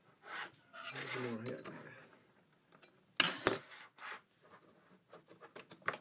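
Mac Mini's plastic inner frame being pried out of its aluminium case with a putty knife: scraping and clicking, with one loud sharp snap about three seconds in and a run of small clicks near the end.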